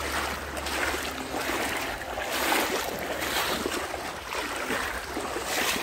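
Footsteps wading through deep floodwater on a road, the water sloshing and splashing with each stride about once a second, with rain falling on the water surface.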